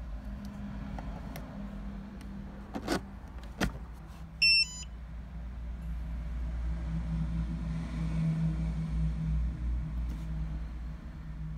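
Spektrum S2200 G2 smart charger detecting a newly connected 6S LiPo smart battery: two light clicks, then a short stepped electronic beep about four and a half seconds in as smart charging initiates. A steady hum from the charger's cooling fan follows and grows louder.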